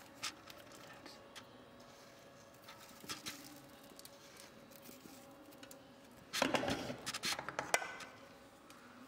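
Light clicks and taps, then about six and a half seconds in a second and a half of rustling, clattering patter as dry spices and carom seeds are added over floured fish pieces in a steel mixing bowl. A faint steady hum sits underneath.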